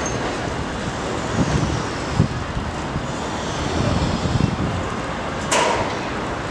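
Steady outdoor city noise of distant traffic and wind on the microphone, with one sharp knock about five and a half seconds in.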